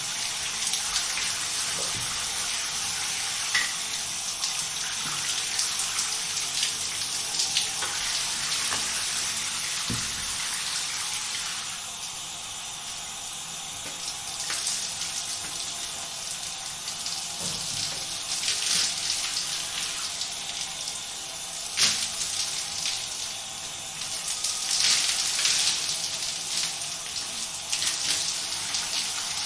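A shower running: a steady hiss of spraying water whose texture shifts now and then, with a few sharp knocks, the loudest about two-thirds of the way through.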